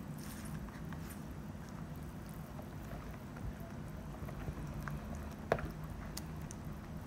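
Silicone spatula stirring and folding thick cassava cake batter in a plastic bowl: soft wet squelches and light scrapes, with a single sharper tap about five and a half seconds in. A low steady hum runs underneath.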